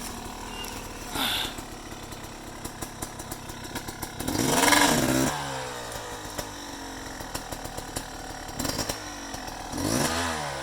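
Small Yamaha off-road engine running, revved hard twice: about four seconds in and again near the end. Each rev rises and then falls in pitch, with light clatter in between, as the machine struggles to climb out of a steep gully.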